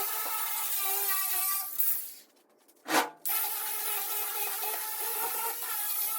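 A wire wheel on a power tool running against the toolbox's sheet metal, a steady whine with scratchy hiss as it strips rust and paint. About two seconds in the sound drops away briefly, a single sharp snap follows, and the wheel runs on.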